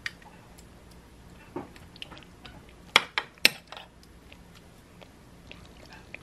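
Metal spoon clinking and scraping against a ceramic baking dish while spreading sauce: a handful of sharp clinks, the two loudest about half a second apart near the middle.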